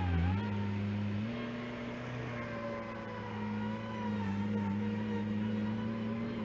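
The engine of a dirt-moving machine running steadily, its speed dipping and rising slightly about a second in.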